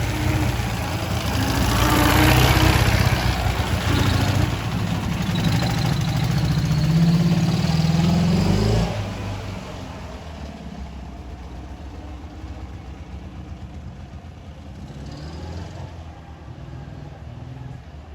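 Ural motorcycle's flat-twin engine running and being revved, its pitch rising, then falling back sharply about nine seconds in and running on more quietly. The owner suspects this engine of knocking.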